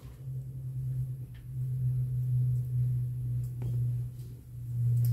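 A steady low hum whose loudness swells and fades, with a few faint clicks over it.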